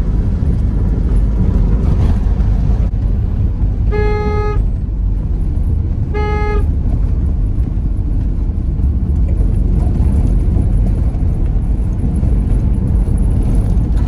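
Steady low rumble of a car driving, heard inside the cabin, with two short car-horn honks about two seconds apart, a few seconds in.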